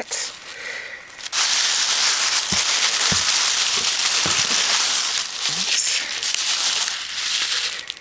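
Packing paper and bubble wrap crinkling loudly as hands dig through a cardboard shipping box. It starts about a second in and stops shortly before the end.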